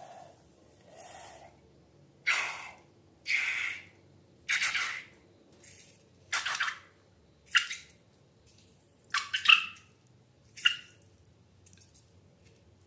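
Wet squishing and squirting of slime or liquid being squeezed and poured, in about eight separate bursts roughly a second apart; the later bursts are shorter, with a slight squeak.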